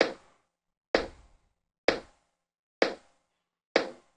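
Electronic kick drum sample, the body layer of a layered kick, playing on a loop: five identical hits about a second apart, each a short punch that dies away quickly. It runs through an L1 Ultramaximizer limiter set to fatten the body of the kick while still leaving a tail.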